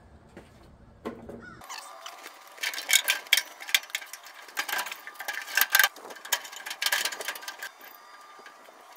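Irregular metallic clanks, clicks and rattles of steel pedal and linkage parts being handled and shifted under the truck's dash. They start about a second and a half in and die away shortly before the end.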